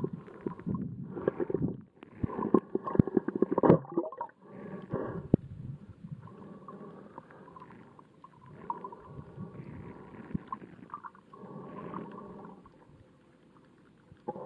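Underwater sound of water sloshing and gurgling around a camera held just below the surface, coming in irregular swells, with a burst of crackling about three seconds in.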